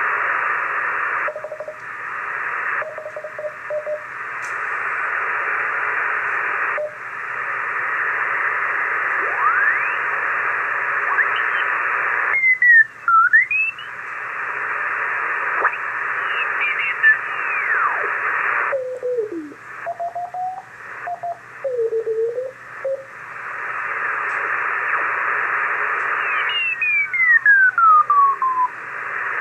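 Audio from an Icom IC-746 shortwave transceiver tuned across the 40-metre CW band: a steady hiss of band noise, cut off above about 3 kHz, broken by Morse carrier tones that slide in pitch as the tuning sweeps past stations. A few short steady notes come through, and a long falling tone sounds near the end.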